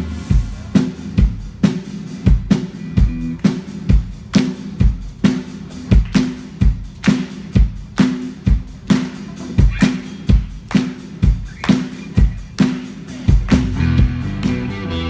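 Live rock band through a PA: the drum kit plays a steady beat of about two hits a second, with pitched guitar and bass parts filling in near the end.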